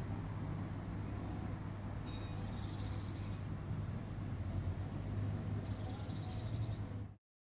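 A bird chirping, with a short trill about two seconds in and another near the end, over a steady low background rumble. All sound cuts off abruptly just before the end.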